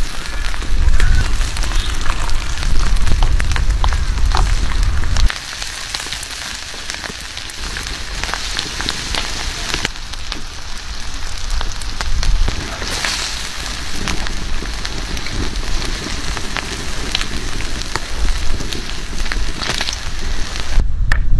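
Food sizzling on a hot stone slab over a wood fire: a steady crackling hiss with many small pops. For the first five seconds or so a low rumble sits under it, stopping suddenly.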